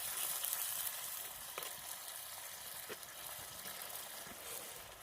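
Sardines frying in hot oil in a pot: a steady sizzle that slowly fades, with a couple of faint light clicks.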